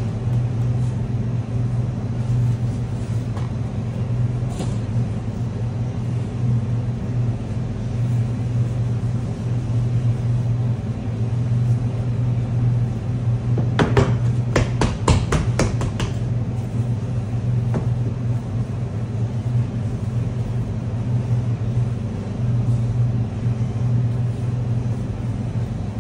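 Steady low hum of kitchen machinery. Around the middle comes a quick run of about eight knocks as a wooden rolling pin beats a block of laminated croissant dough on a stainless-steel bench.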